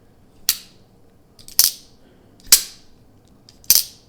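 Demko AD20.5 folding knife's Shark-Lock snapping as the blade is flicked open and shut. Four sharp clicks come about a second apart.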